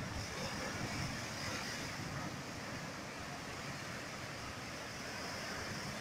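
Ocean surf breaking and churning against a rocky shore: a steady rushing wash of foaming water, with irregular low rumbles of wind buffeting the microphone.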